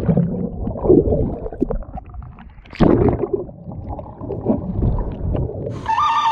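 Air bubbles and water gurgling and rushing past an action camera held under the water, heard muffled, in irregular surges. The loudest surges come about a second in and just before three seconds. Music comes in near the end.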